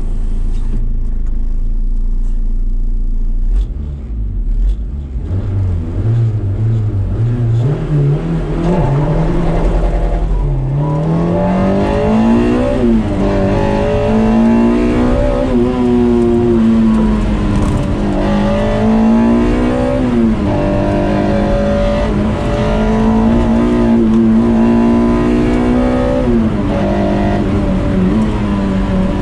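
Toyota MR-S with a swapped 2ZZ-GE 1.8-litre four-cylinder running low and steady, then from about four seconds in accelerating hard, its revs climbing in steps through the gears. For the rest it runs at high revs with repeated brief dips and pickups as it shifts and lifts between corners.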